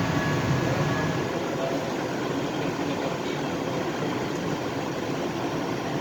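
LA Metro A Line light rail train running underground, heard from inside the car: a steady rumble of wheels on rail and traction equipment, with a faint whine.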